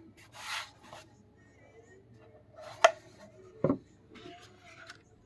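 Handling sounds from a keyboard: a brief rub near the start, one sharp click near the middle (the loudest sound), then a low knock and a soft rubbing hiss, over faint background music.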